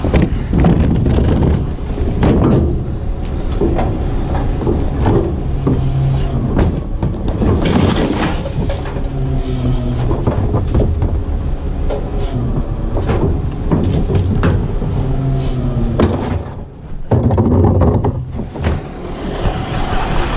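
EZ-Pack rear-loader garbage truck's diesel engine running while a wheeled plastic trash cart is tipped into the rear hopper. Repeated knocks and clanks come from the cart and the tipper.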